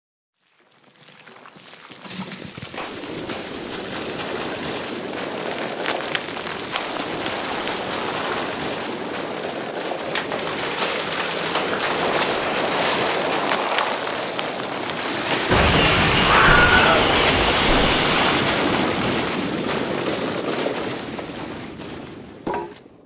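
Many wooden planks clattering and tumbling as a block tower collapses: a dense rattle of wood on wood that builds up about a second in and stays thick with sharp clacks. It swells into a louder, heavier crash about two thirds of the way through, then dies away to a last couple of clacks near the end.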